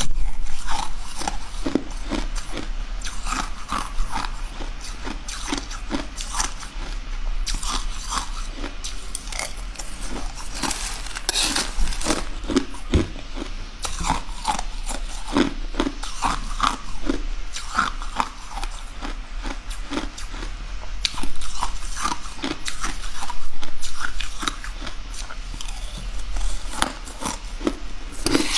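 Crunching and chewing mouthfuls of crushed coloured ice: many sharp, brittle crunches in quick succession, coming in clusters a few seconds apart as each spoonful is bitten and chewed.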